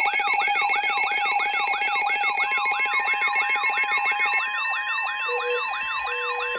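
Several layered electronic alert sounds: a siren-like yelp that sweeps down in pitch nearly three times a second, a higher warbling sweep, and stepped beeping tones. A long steady tone joins about two and a half seconds in, and a lower tone starts pulsing near the end.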